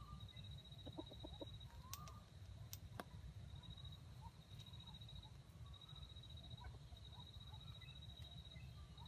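Faint, soft clucking from a chicken, with a quick run of about five clucks around one second in and a few brief chirping calls, over a steady high-pitched pulsing trill and a low rumble.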